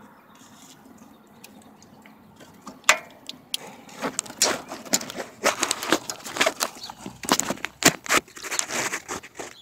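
Small metal ratchet turning a 10mm bolt: irregular runs of sharp clicks and light metal knocks, starting about three seconds in and continuing to the end.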